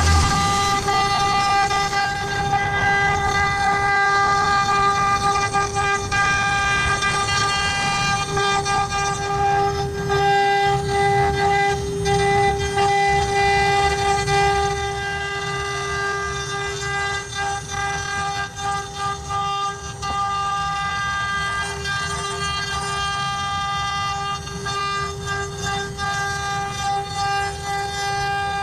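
CNC router spindle running at a steady high whine while the bit engraves wood, with a rough, uneven grinding noise from the cut underneath.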